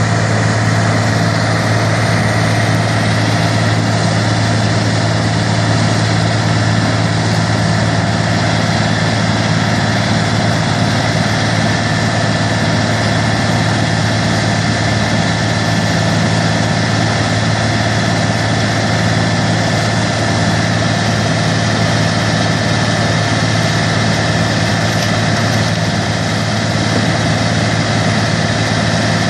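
Grinder running steadily: a constant low mechanical drone that holds the same speed throughout, with no loading or bogging down.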